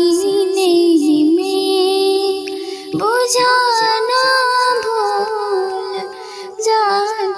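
A woman's voice singing long, held and bending notes of a ghazal melody without clear words, a new phrase rising in at about three seconds, over a steady sustained note beneath.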